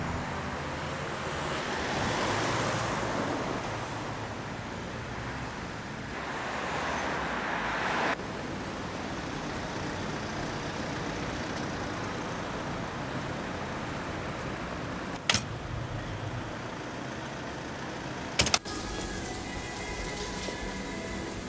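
Street traffic noise, with cars passing by in two slow swells before the sound drops abruptly. Two sharp clicks follow in the second half, about three seconds apart.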